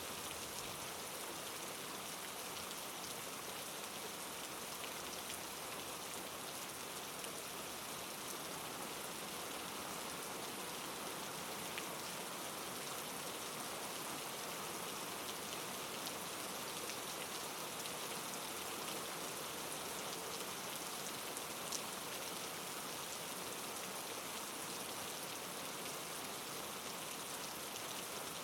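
Steady rain falling, an even hiss with scattered individual drops tapping on a surface.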